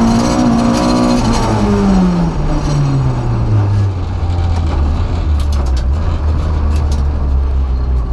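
Renault Clio F2000 rally car's two-litre four-cylinder engine heard from inside the cabin, its revs falling steadily over about three seconds as the car slows, then running low and steady. A few light clicks in the second half.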